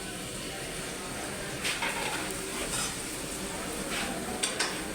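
Fish bhuna sizzling steadily in a frying pan, with a few short scrapes and clinks of a spoon stirring it.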